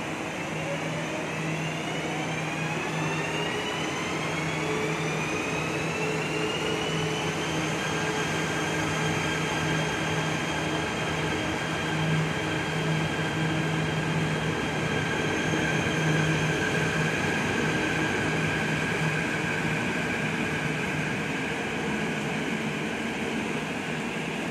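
ETS electric train's traction motors whining as it pulls away from the platform. The whine rises in pitch for about the first seven seconds, then holds a steady pitch as the carriages roll past, over a steady low hum.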